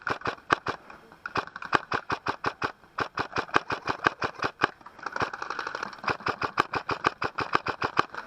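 Airsoft guns firing: a fast, uneven string of sharp clicking shots, about five or six a second, with no let-up.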